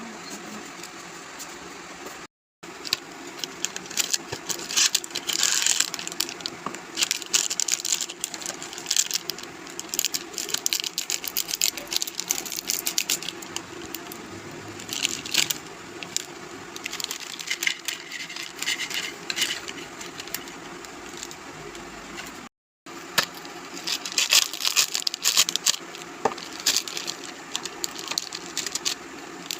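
Snacks being handled: crackly crinkling and clicking of packaging and crisp biscuits in irregular bursts. The sound breaks off abruptly twice.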